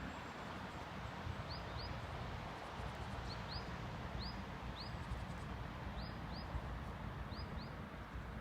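A small songbird calling with short, high chirps, mostly in pairs, about a dozen in all. Under it runs a steady wash of low rumble and hiss from the nearby highway's traffic and light rain.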